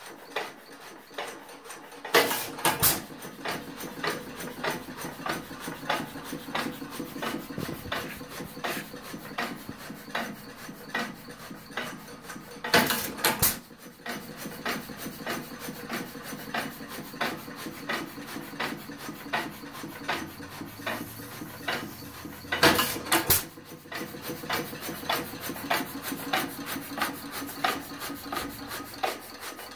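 New Holland 1½ hp hit-and-miss engine running: a steady, even clicking of its valve gear as it coasts, broken by a short, louder burst of firing about 2 seconds in, again about 13 seconds in, and again about 23 seconds in.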